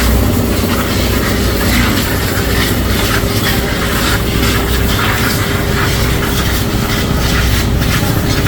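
Loud, steady machinery noise: a low rumble under one constant hum, with a noisy hiss over it.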